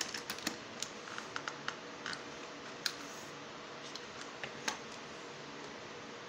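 Light clicks and taps of a small plastic RC car chassis being handled and worked apart by hand, scattered irregularly, with a few sharper clicks among them.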